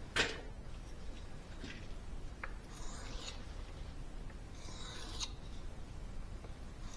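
A light knock, then a few short, soft scrapes a couple of seconds apart: a carbon-steel knife blade drawn across a wet 4000-grit water stone in slow sharpening passes.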